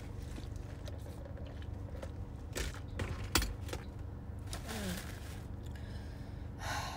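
A few sharp clicks and light rustling as takeout packaging and a plastic utensil are handled, over a steady low hum. A short falling hum from a voice comes about two-thirds through.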